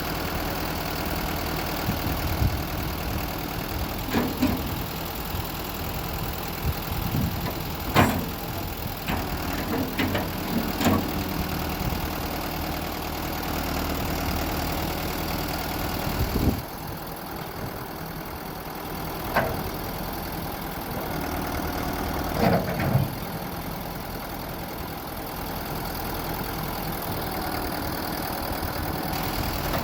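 Versatile 9030 tractor's diesel engine idling steadily, with a few short knocks or clanks over it.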